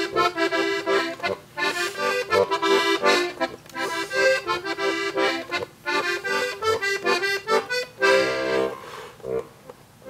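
Diatonic button accordion playing a lively instrumental interlude of rhythmic chords and melody. The playing stops shortly before the end.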